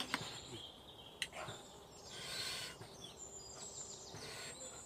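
Two sharp clicks of chopsticks against a plate about a second apart near the start, over outdoor ambience, with a bird chirping quickly about three seconds in.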